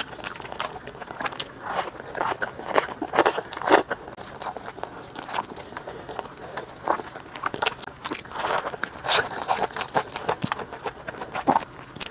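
Close-miked eating: crunchy bites and chewing, with a quick run of irregular crackles.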